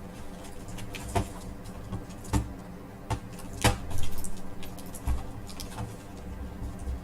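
Plastic clicks and snaps as the front bezel of a laptop screen is pried off its clips, in irregular separate knocks with a cluster about halfway through.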